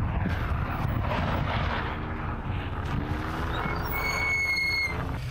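A car engine running and revving up under load, with a steady low rumble and a rushing noise over it. A short high whistle sounds for about a second near the end.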